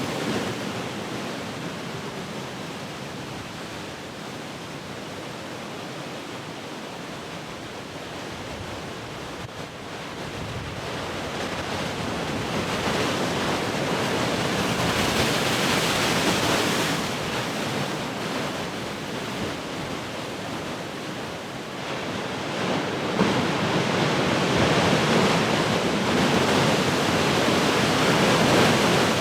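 Large ocean waves breaking, a continuous wash of surf that eases in the first few seconds, swells around the middle and builds again in the last third.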